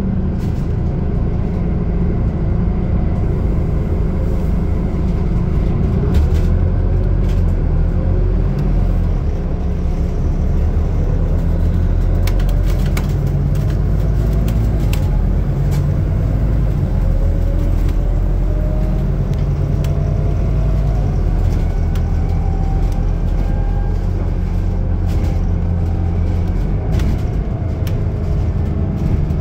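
Scania articulated city bus under way, heard from inside the passenger cabin: a steady low engine and road rumble, with a thin whine that slowly climbs in pitch through the second half. Scattered short clicks and rattles throughout.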